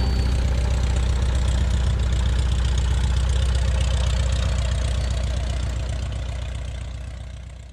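Piston engine and propeller of a Van's RV homebuilt light aircraft running at low taxi power with a steady, even pulsing. The sound fades out over the last couple of seconds.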